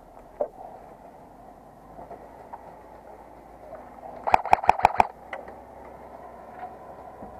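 Airsoft gun firing a rapid string of about six sharp shots in under a second, a little past the middle.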